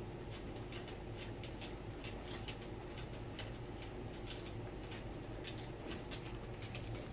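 Scattered soft clicks and small rustles from a litter of four-week-old miniature Bordoodle puppies moving, mouthing and wrestling on bedding, over a steady low hum.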